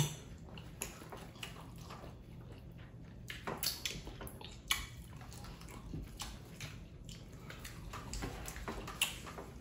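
People eating okra soup and amala: wet chewing and lip smacks, a scatter of short, irregular clicks.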